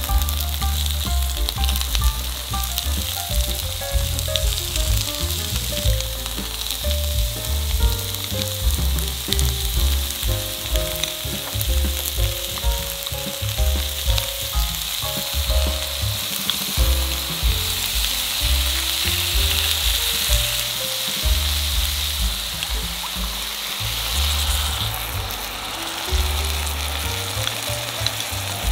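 Tofu and sliced onion and leek sizzling in an oiled frying pan, a steady hiss. Light background music with a bass line plays along.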